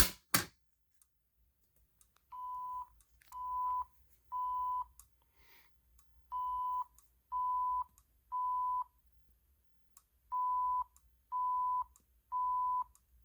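Fire alarm speaker sounding a steady tone of about 1 kHz in the temporal-three evacuation pattern. Each group is three half-second beeps about a second apart, followed by a pause, and the group comes three times. This alert tone leads into an FCI E3 voice evacuation message. Two sharp clicks at the start come from the pull station being pulled.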